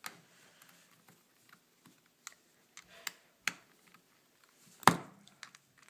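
Small, sharp clicks and taps of a machined aluminum phone case being handled and fitted together with its small screws and wrench. The taps are scattered and irregular, with one louder knock near the end.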